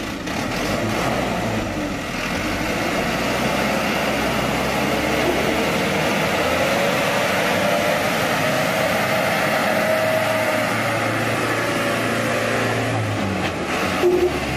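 MAESA military truck's engine running steadily.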